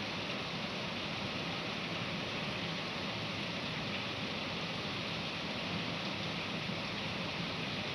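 Heavy rain pouring steadily: an even, unbroken hiss with no distinct drops or thunderclaps.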